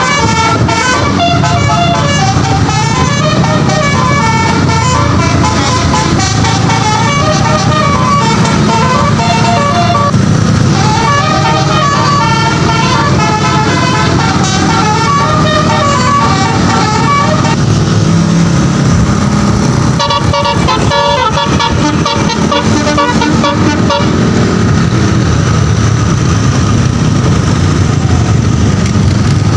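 A tour bus's basuri telolet horn, a multi-note musical horn, playing a melody note by note for about seventeen seconds, breaking off briefly, then playing a few more seconds of notes, over the steady low rumble of engines.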